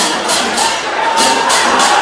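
Festival music with a steady beat of sharp, high, metallic clashes about four a second, over the noise of a large crowd.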